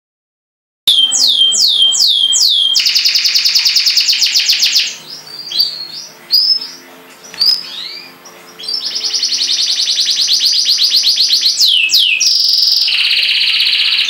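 Domestic canary singing: a run of quickly falling whistled notes, then a long rapid trill, a few softer chirps, and a second long rapid trill broken by falling notes near the end.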